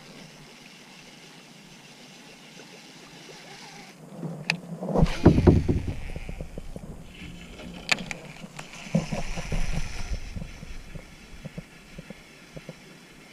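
Handling noise in a kayak: close rubbing, knocks and a few sharp clicks in two bouts, one about four seconds in and one about eight seconds in, over a faint steady background.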